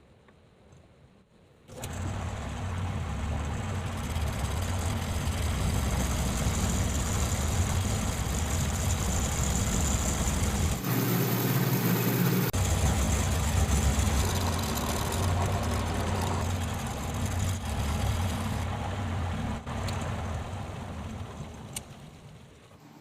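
Homemade lathe's motor running: a steady hum that starts suddenly about two seconds in, changes briefly near the middle, and dies away near the end.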